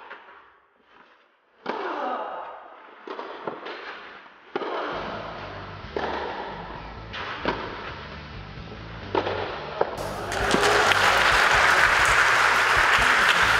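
Tennis rally on a clay court: racket strikes on the ball about every one and a half seconds, then the crowd applauds from about ten seconds in as the point ends.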